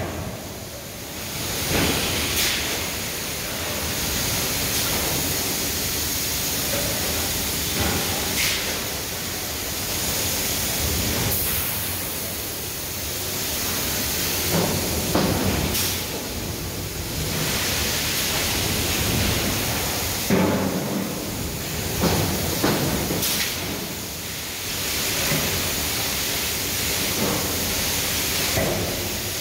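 Steady industrial din of a running forge shop, heavy machinery working hot steel, with sharp knocks and bangs every few seconds.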